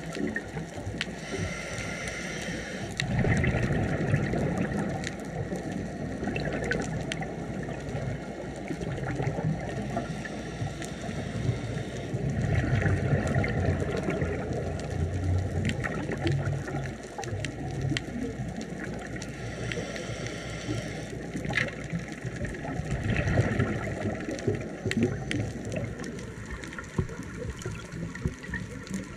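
Scuba diver breathing through a regulator underwater: a hissing inhalation, then a gurgling rush of exhaled bubbles. About three breaths come several seconds apart.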